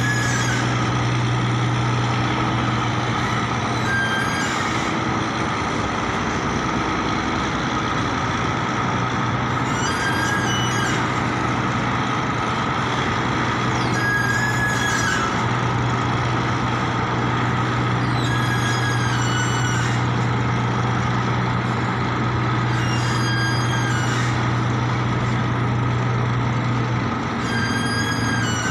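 A boat's engine running steadily with a low hum, which drops away shortly before the end. Short high chirps sound over it about every four to five seconds.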